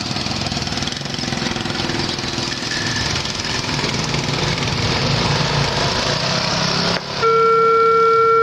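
Small engines of motorcycles and a pickup truck running as they cross the railway tracks. About seven seconds in, the traffic noise cuts off and the level crossing's electronic alarm starts: a loud, steady, pitched warning tone.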